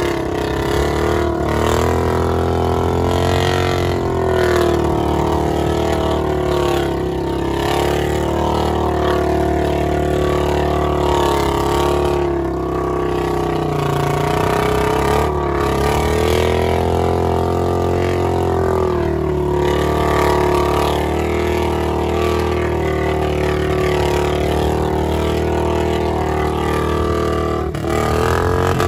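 Royal Enfield Bullet 350's single-cylinder engine revving under load as the rear wheel spins in wet mud, the bike stuck; the revs dip and rise several times.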